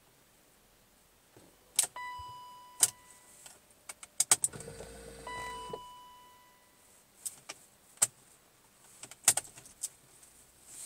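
BMW E39 540i that won't start: sharp clicks from the ignition key and starter, two fading warning chimes, and a brief electric whir, with no engine cranking or catching. The uploader traced this no-start to a failed starter.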